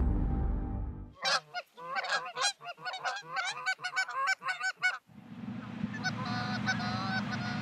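A flock of Canada geese honking as they fly in, many overlapping calls. After about five seconds a steady low rumble comes in, with fainter honks above it.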